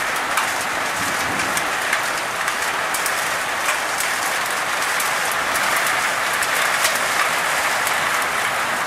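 Heavy rain falling steadily on wet ground and puddles: a dense, even hiss with scattered sharp ticks of individual drops landing close by.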